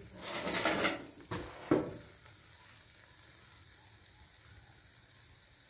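Fish sizzling in a wire grill basket over hot charcoal: a few louder rushes of noise in the first two seconds, including two sharp ones close together, then a faint, even sizzle.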